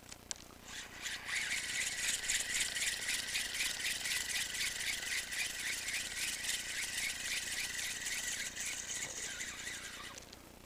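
Feeder rod's spinning reel being cranked steadily, a rhythmic rattling whir as the depth-sounding weight is reeled back in, stopping just before the end. Two short clicks come just before the cranking starts.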